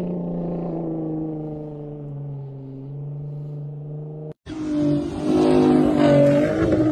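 Ford F-150 Raptor R's supercharged 5.2-litre V8 running under load as the truck drives on sand, its engine note sinking slowly in pitch. After a sudden cut about four seconds in, a louder, brighter stretch of engine sound begins.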